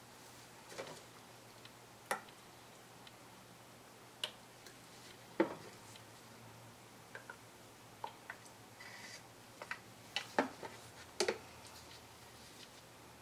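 Light clicks and taps at irregular intervals, from thin plastic paint cups and wooden craft sticks being picked up, tipped and set back down on a wooden board, with a few louder knocks about five, ten and eleven seconds in. A faint low hum runs underneath.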